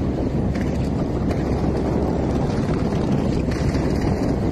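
Steady rush of wind on the microphone over sea water sloshing against a small fishing boat.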